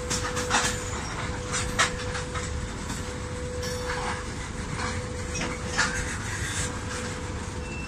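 Freight train of open gondola wagons rolling slowly past: a steady rumble with irregular sharp clicks and clanks from the wheels and couplings, over a faint steady hum.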